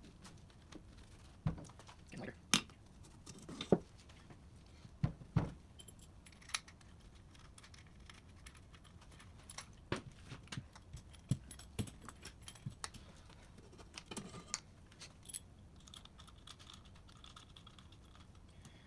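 Scattered clicks and light metallic clinks of hand tools and small engine parts being handled, with a few sharper knocks in the first six seconds and lighter, quicker ticks later.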